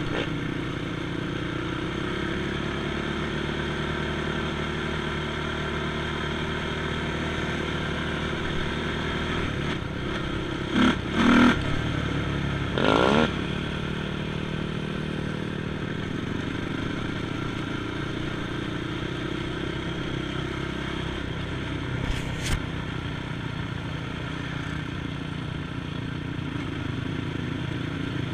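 ATV engine running steadily, with a few brief louder bursts about eleven, thirteen and twenty-two seconds in.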